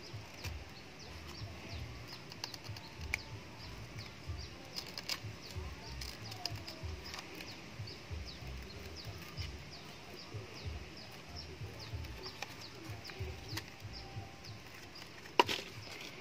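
Small birds chirping constantly in short, quick notes, over scattered clicks and light scraping from a thin blade cutting into the base of a potted coconut seedling; one sharp click stands out near the end.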